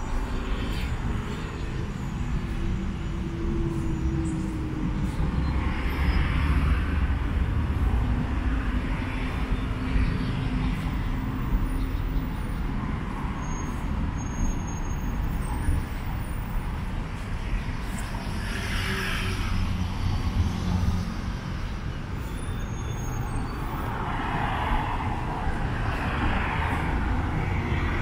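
Road traffic: cars running and passing, with a steady low rumble and the noise of passing vehicles swelling and fading several times.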